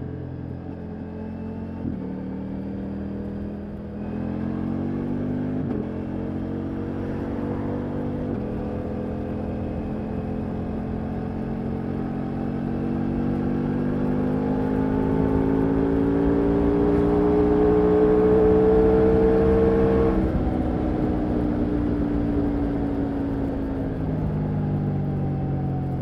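Ducati Multistrada V4 Rally's 1158 cc V4 Granturismo engine under hard acceleration, with a run of quick upshifts in the first eight seconds or so. It then pulls in one gear, pitch rising to its loudest about three-quarters in, before the throttle eases and the pitch falls away.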